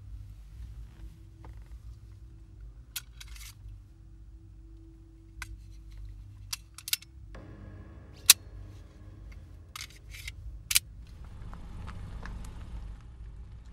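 Semi-automatic pistol being handled: a series of sharp mechanical clicks and snaps, the loudest about eight seconds in, over a low steady hum.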